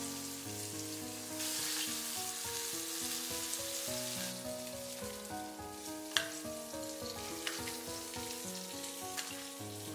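Pan-fried crabs sizzling in hot oil as they are lifted out with chopsticks. The sizzle is loudest for a couple of seconds near the start. A few sharp clicks come later, over soft background music.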